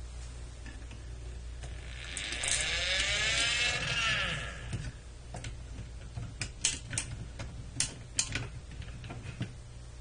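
Toy forklift's friction-gear motor whirring as the toy is rolled along, its pitch rising and then falling over a few seconds, followed by a run of sharp plastic clicks.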